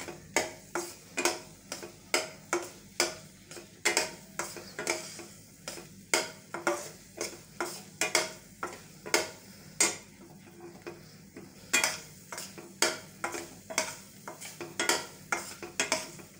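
A thick milk-powder mixture being stirred and scraped in a stainless steel pan, in short strokes about two a second, as it cooks down and thickens.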